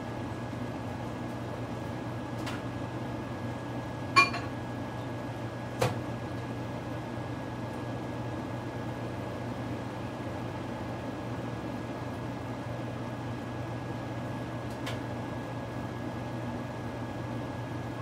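Steady electrical hum with a thin, high, steady whine from a running kitchen appliance. A sharp, ringing, glassy clink comes about four seconds in, and a smaller click about two seconds later.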